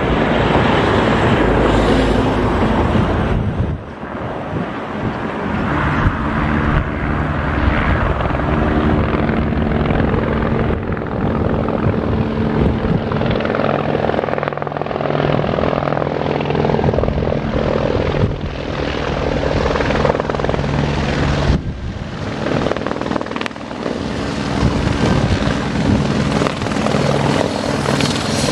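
AS355 twin-turbine helicopter running close by: steady rotor beat and turbine whine, with a few sudden brief drops in level.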